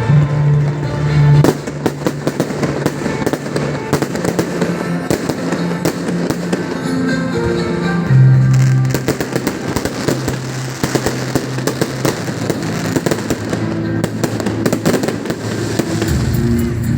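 New Year's fireworks: dense, rapid crackling and banging from many rockets and firecrackers, mixed with music that has held bass notes.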